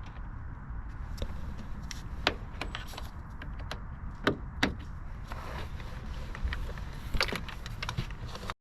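Car door trim parts being handled and fitted: scattered sharp clicks and knocks, the loudest about two, four and a half, and seven seconds in, over a low steady hum. The sound cuts off suddenly just before the end.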